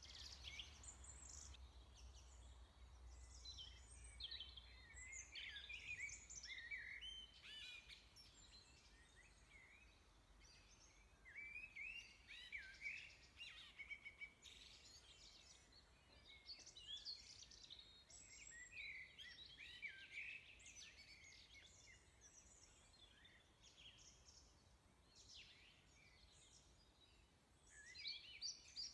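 Faint bird chirps and calls, many short rising and falling notes coming and going, over a low steady hum.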